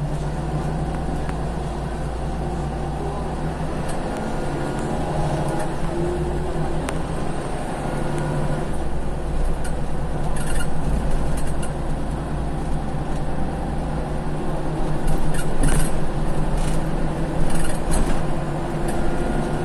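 Inside a worn Scania CL94UB city bus: the diesel engine runs with a steady low hum and the cabin rumbles, getting somewhat louder about halfway through. A few short, sharp noises cut in near the middle and towards the end.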